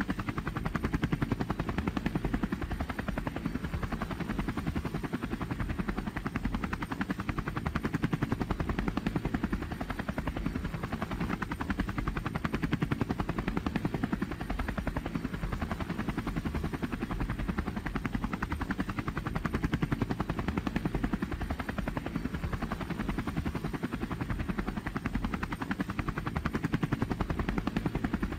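Robinson R44 Clipper helicopter in cruise flight, heard from inside the cabin: a steady drone of rotor and engine with rapid, even rotor beats throughout.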